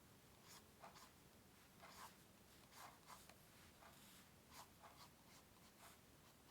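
Faint, short, scratchy strokes of a drawing tool on paper, a dozen or so in irregular succession as someone draws.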